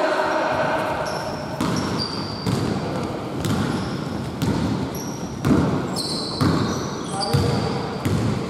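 Basketball being dribbled on a hardwood gym floor, a run of thuds about one or two a second, with short sneaker squeaks from players running on the court.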